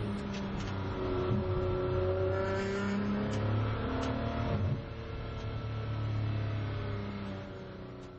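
Ferrari 599XX's V12 engine heard from inside the car, its pitch rising and falling as the car is driven off the throttle after the flying lap. It drops in level about halfway through, then fades away near the end.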